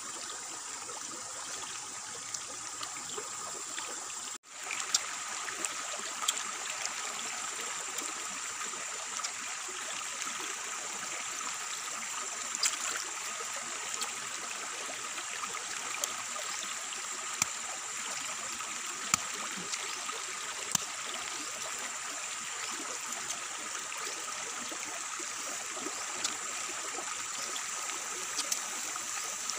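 Steady rush of running water with scattered sharp clicks and crunches as a fruit is peeled and bitten into. The sound drops out for a moment about four seconds in.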